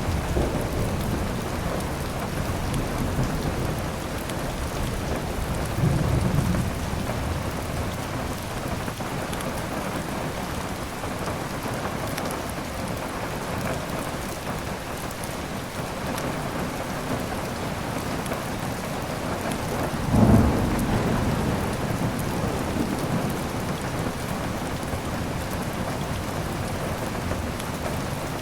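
Steady heavy rain with a low rumble of thunder about six seconds in and a stronger one about twenty seconds in.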